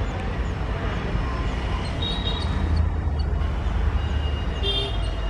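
Diesel engines of a pair of WDG-3A locomotives (ALCO 251 V16) running with a steady low rumble as they haul a passenger train away from the platform. Short high chirps sound over the rumble around the middle and near the end.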